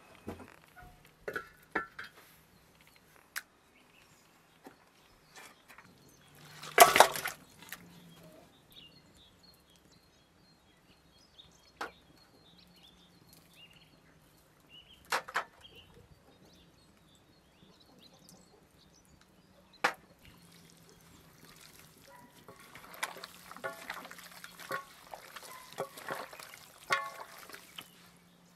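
Handling sounds while raw chicken pieces are seasoned in an enamel bowl: scattered knocks and clinks, one louder sound about seven seconds in, and a busy stretch of small handling sounds near the end.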